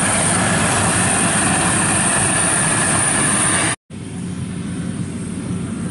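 FMWorld rice combine harvester's diesel engine and threshing machinery running steadily under load while cutting rice. It cuts off abruptly about four seconds in, and a quieter combine running farther away follows.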